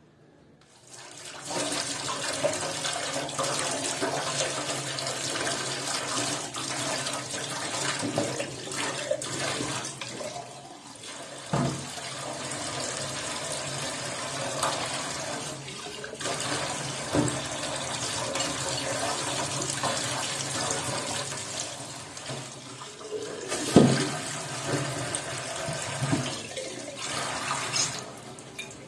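Kitchen tap running into a stainless steel sink while a glass jar is rinsed under the stream, starting about a second in. A few sharp knocks come through the running water, the loudest late on.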